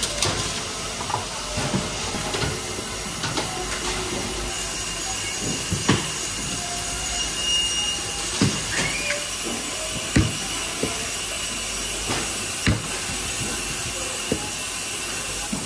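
Knife strokes knocking on a cutting board, a sharp knock every second or two at an uneven pace, over a steady background hiss.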